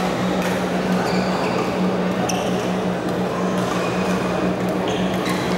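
Badminton hall ambience: a steady low hum under a murmur of voices, with scattered sharp clicks of rackets striking shuttlecocks on the courts.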